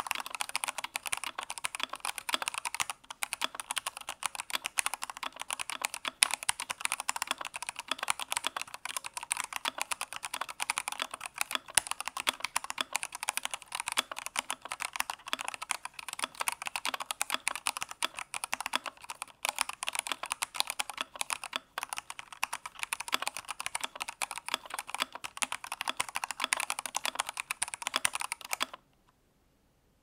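Fast, continuous typing on a Redragon K641 PRO 65% aluminum-case mechanical keyboard: a dense stream of key clacks that stops suddenly near the end.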